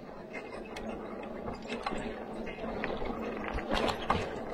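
Vehicle jolting slowly down a rough, muddy dirt road: many irregular rattles and knocks over a steady low rumble.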